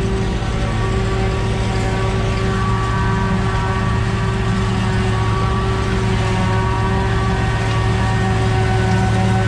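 Large diesel engine of harvest machinery running steadily at constant speed, a loud, even drone with a low hum.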